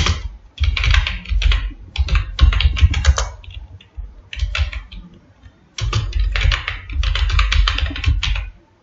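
Typing on a computer keyboard: quick runs of keystrokes with short gaps, and a lull of about two seconds in the middle.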